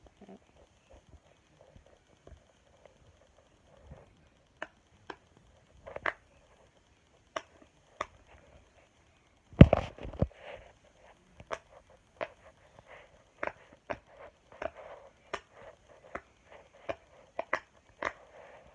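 Silicone pop-it fidget toy having its bubbles pressed one after another: a string of sharp pops at uneven spacing, the loudest about ten seconds in and coming faster in the second half.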